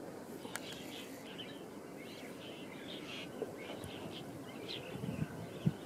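Birds chirping faintly with short, high calls over a low background hiss, with a few low rumbles near the end.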